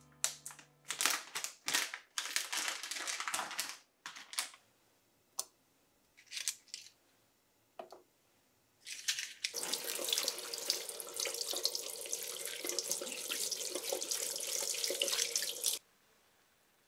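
Kitchen tap water running into a sink for about six seconds, then shut off abruptly. Before that come a few seconds of short splashes and knocks at the sink.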